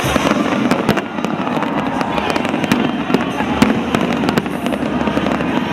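Aerial fireworks exploding in quick succession, with many sharp bangs and crackles over a continuous wash of bursts.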